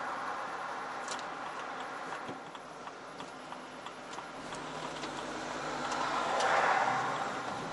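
Tyre and road noise of a car driving, heard from inside the car. A car passing close in the next lane makes the noise swell and fade about six and a half seconds in, and a few faint ticks come at irregular intervals.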